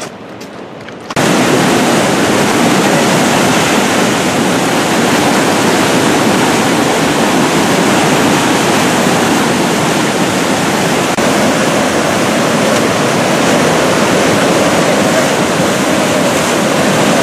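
Swollen, muddy river in flood rushing loudly and steadily, cutting in abruptly about a second in.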